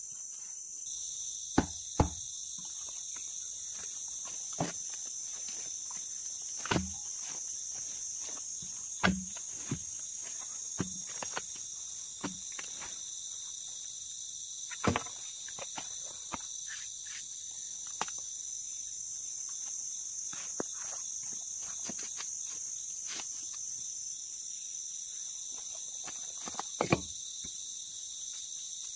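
Chorus of tropical insects buzzing steadily at a high pitch, starting just under a second in. Scattered knocks and clicks run through it, the loudest a few sharp ones near the start, around the middle and near the end.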